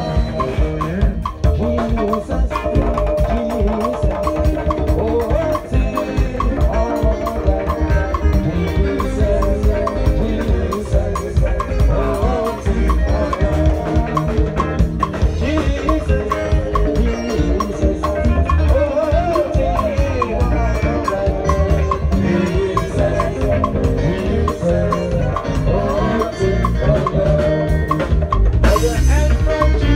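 Live band playing an instrumental gospel groove: a drum kit and percussion keep a steady beat under sustained pitched instrument lines.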